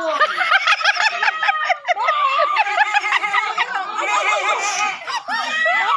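Many people at once imitating animal calls with their voices, overlapping without a pause apart from brief dips about two seconds in and again near the end.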